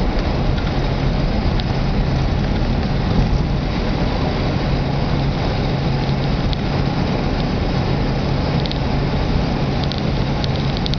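Subaru Legacy's boxer engine running at a steady pitch under a constant hiss of tyre and wind noise, heard from inside the cabin.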